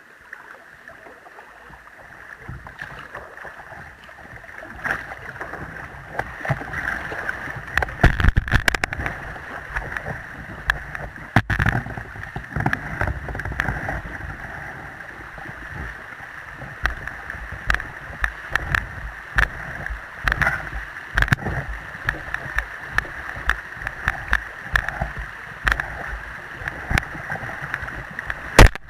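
Fast, shallow river water rushing and splashing around a kayak running a weir chute, a steady hiss that grows louder after a few seconds. Many sharp splashes and knocks break through it, the loudest about eight seconds in and again just before the end.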